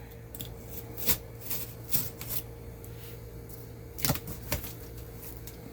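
Blade cutting and scraping at thick packing tape on a cardboard box: a handful of short sharp clicks and scrapes, the loudest about four seconds in.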